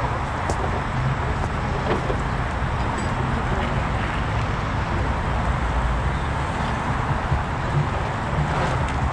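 Heavy rotator tow truck's diesel engine running steadily, a constant low hum with a few faint ticks over it.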